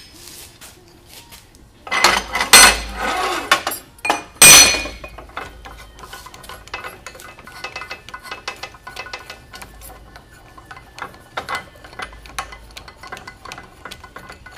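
Steel clanking and scraping as a hydraulic cylinder's piston and rod are pulled out of the barrel. It is loudest in a clatter about two seconds in and a sharp clank about four and a half seconds in, followed by a run of light metal clicks and clinks.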